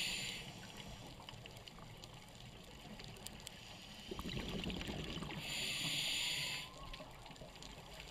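Faint underwater sound of a scuba dive: a scuba regulator hissing on an inhalation twice, once at the start and again for about a second past the middle, with a stretch of bubbling from about four seconds in. Small scattered clicks run through a low rumble.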